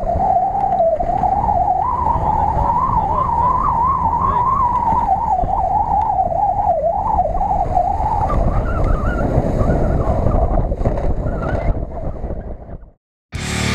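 Jeep Cherokee's engine running at high revs, its pitch wavering up and down, as the off-roader drives across snow. It fades out near the end, and rock music starts just before the end.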